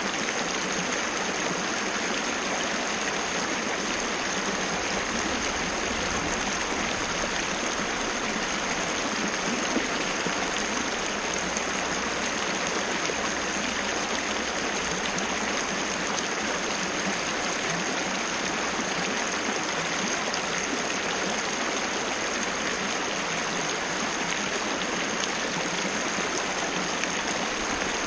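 Waterfall cascading in a steady, even rush of falling water. A thin, steady high tone sits above it.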